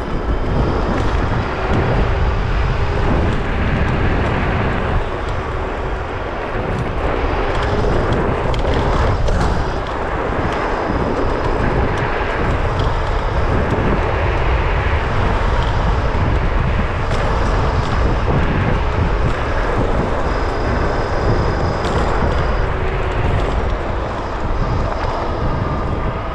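Wind rushing over the microphone and tyre noise from a Varla Pegasus electric scooter riding fast downhill, with a thin high whine from its hub motors that comes and goes.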